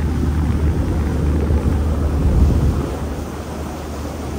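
Wind buffeting the microphone on the open deck of a moving river cruise boat, a steady low rumble with the boat's engine and water noise beneath, swelling a little about halfway through.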